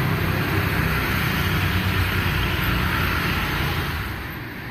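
Street traffic: motor scooters and cars passing close by, a steady rumble of engines and tyres that fades about four seconds in.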